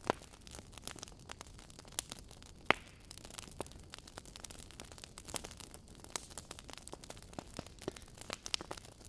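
Burning logs in a fireplace crackling: irregular sharp pops and snaps over a low hiss, two louder pops right at the start and a little under three seconds in.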